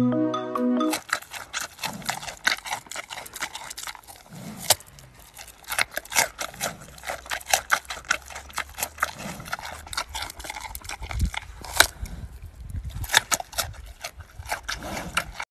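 A giant panda chewing a chunk of pumpkin: a dense run of irregular crackling, smacking clicks. The first second is mallet-percussion music.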